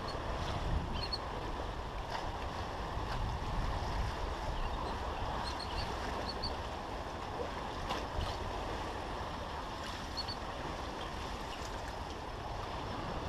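Steady wind noise on the microphone over water washing below the pier, with a few faint ticks now and then.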